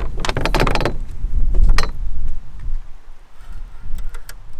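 Wind rumbling on the microphone, with a run of clicks and knocks in the first two seconds from a spinning rod and reel being handled in a canoe. It grows quieter after that, with a few faint ticks near the end.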